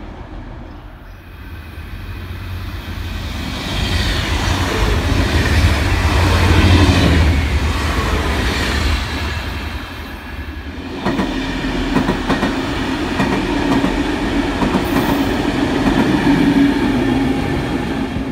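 DB Class 612 diesel multiple units running past a station platform, engines giving a deep rumble with wheels clacking over the rails. The first pass builds to a loud rumble with a high whine mixed in. About ten seconds in it gives way to a second, steadier pass with an even engine hum.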